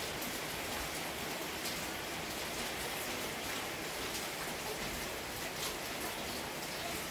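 Steady rain falling, an even hiss with scattered small drip ticks.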